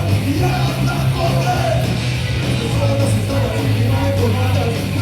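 Loud punk rock music: distorted electric guitar over a heavy bass line, with sung vocals.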